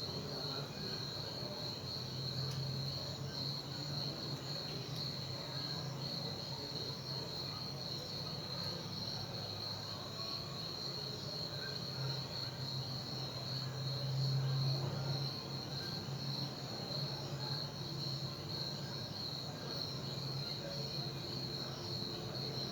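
Crickets chirping steadily in a continuous high trill, over a low steady hum that swells briefly a little past the middle.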